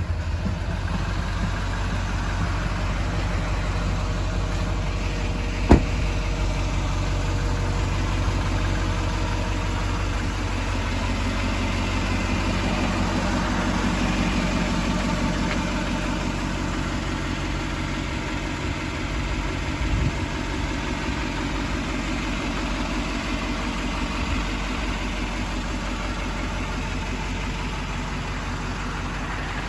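Chevrolet Silverado 5500 HD's 6.6-litre Duramax V8 turbo-diesel idling steadily. A single sharp knock comes about six seconds in and a softer one near twenty seconds.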